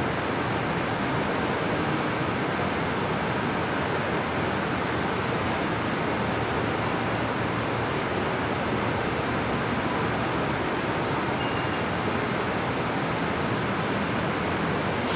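Steady, even rushing hiss that does not rise or fall.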